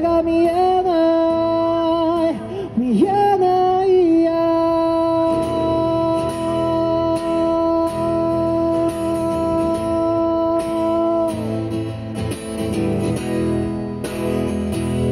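A man singing to his own acoustic guitar: a short sung phrase, then one long held note of about seven seconds that fades out around eleven seconds in, after which the guitar strumming carries on alone.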